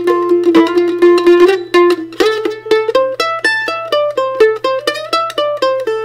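F-style mandolin played solo, a melody in A minor picked with quick repeated strokes on each held note, climbing to higher notes about two seconds in.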